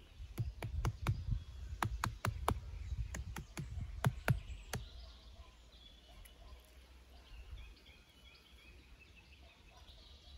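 A person climbing down into and moving about in a dirt pit: scuffing with a quick run of a dozen or so sharp cracks over the first five seconds, then quieter, with birds chirping in the background.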